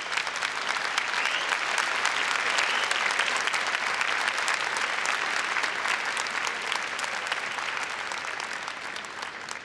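Large audience applauding: a dense patter of clapping that builds over the first second or two and slowly dies down toward the end.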